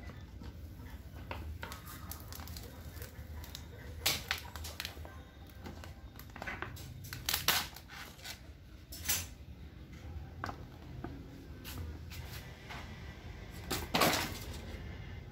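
Thin plastic polarizer film being peeled off an LCD panel's glass and handled, crinkling and crackling in short bursts, with louder rustles about 4, 7, 9 and 14 seconds in. The film is stuck to the glass with old adhesive.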